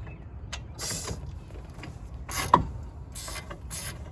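Hand tools and metal hub parts handled on a car's wheel hub: a run of short metallic clicks and brief scrapes, with one sharp click about two and a half seconds in.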